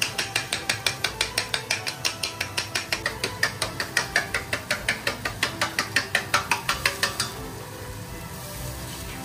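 Chopsticks beating eggs in a stainless steel bowl: quick, even clacks against the metal, about five or six a second, which stop about seven seconds in.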